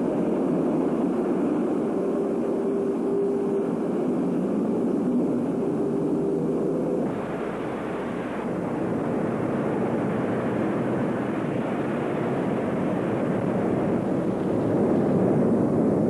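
Steady industrial roar of a furnace, a dense rushing noise with a faint hum in the first half. About seven seconds in it turns brighter and harsher.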